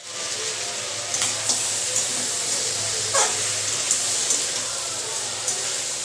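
Crab and brinjal pieces sizzling in spiced oil in a metal kadai while a steel spatula stirs them, with scattered clicks and scrapes of the spatula against the pan. A short sound falling in pitch stands out about three seconds in.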